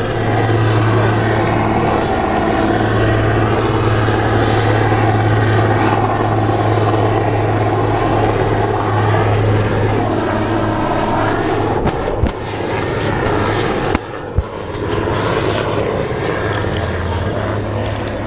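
Loud, steady engine drone with a constant low hum, and a few sharp knocks about two-thirds of the way in.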